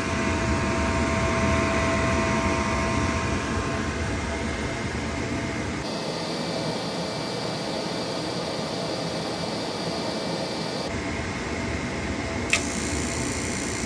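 Steady whir and hum of a furnace inducer blower motor running, the new motor on test after replacement, broken by a few abrupt cuts.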